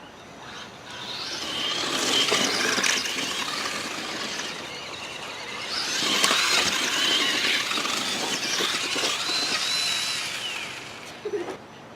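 Electric RC truck's motor and gears whining as it drives in two bursts, the second winding down near the end.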